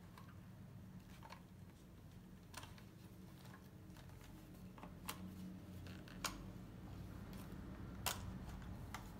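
Vintage Dresden-made folding bellows camera being closed by hand: a few sharp metal clicks and light handling rattles as the lens standard is pushed back and the front bed folds up, the loudest click near the end. A steady low hum sits underneath.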